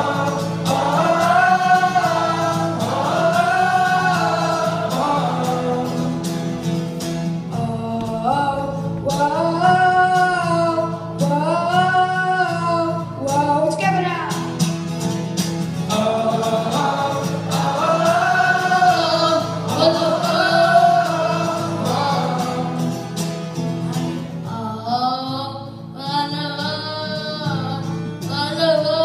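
Several voices singing long, swelling notes together over steady sustained chords, in repeated phrases.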